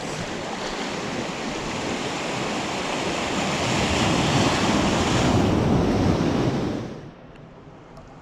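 Sea waves rushing in on a fast incoming tide: a surging wash that builds to its loudest about five or six seconds in, then cuts off abruptly near the end.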